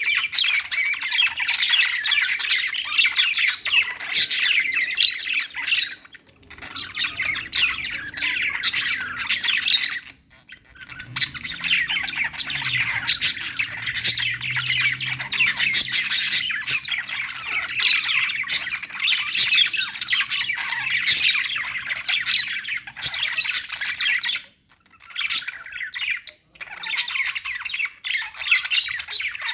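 Budgerigars (parakeets) chirping and chattering in a dense, overlapping warble, broken by a few brief pauses.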